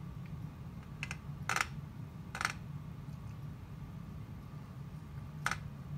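A few light, sharp taps, most likely a screwdriver handle rapping the altimeter case to settle the pointer before a scale-error reading, two close together about a second and a half in and one more near the end. Under them runs a steady low hum from the pitot-static test bench.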